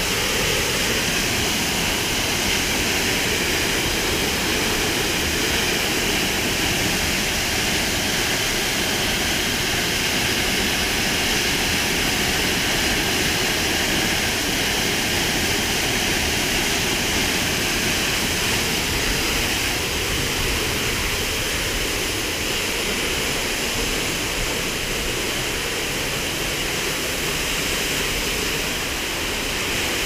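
Waterfall roaring: a curtain of water pouring down just beside the path behind it, a steady loud rush that eases a little over the last several seconds.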